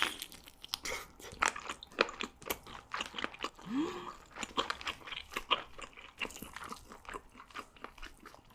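Close-miked chewing of chewy squid: irregular wet smacks and clicks of the mouth, with a brief rising hum about halfway through.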